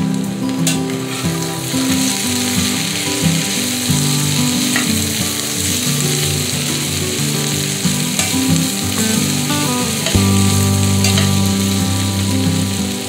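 Diced potatoes and onions sizzling steadily as they fry in a cast-iron skillet, stirred and turned over with a slotted spatula, with a few light scrapes and clicks.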